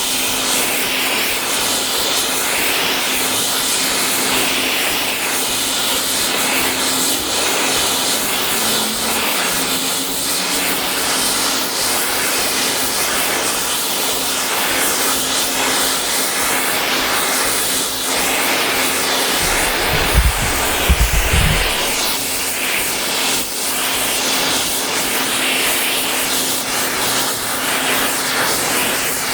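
Gas burner running with a steady roar and an even low hum, typical of a propane forge or torch heating steel pipe for bending. A few low knocks come about two-thirds of the way through.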